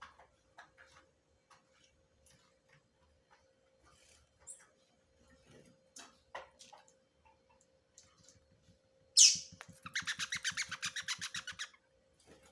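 A double-collared seedeater (coleiro) chick gives one sharp, loud cry about nine seconds in. Straight after it comes a rapid run of chirps, about a dozen a second, lasting about two seconds. Faint scattered taps come before.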